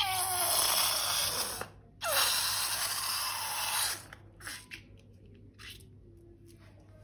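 Air hissing out of a balloon in two bursts, the first lasting under two seconds and the second about two seconds after a short break, each starting with a brief falling squeal; small handling noises follow.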